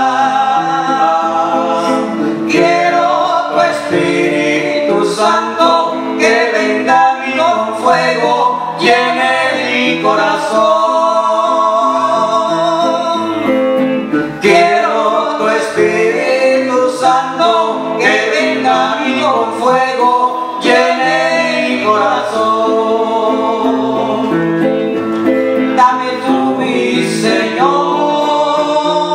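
A worship song sung by a man and a woman into microphones, with electric guitar accompaniment; the singing runs in phrases with short breaks between them.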